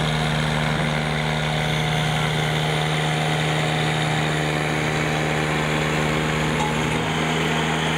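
Truck engine idling steadily close by, a constant low drone with a fine rapid pulse; its lowest tones shift about seven seconds in.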